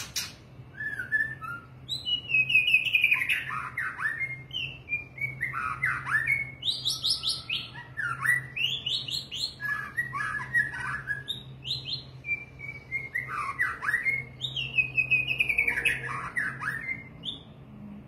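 White-rumped shama singing: a string of loud whistled phrases, many made of quick notes sliding down in pitch, following one another every second or two. A sharp click comes right at the start, and a low steady hum runs underneath.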